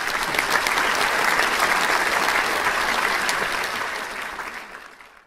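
Applause, many hands clapping, fading out near the end.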